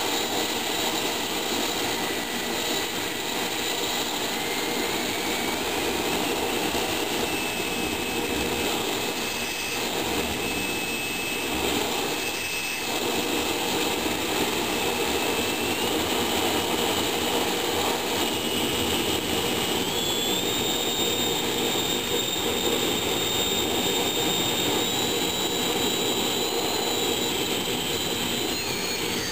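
Hago siphon oil burner firing: a steady roar of burning, air-atomized oil. Over it, a thin whistle steps up in pitch several times.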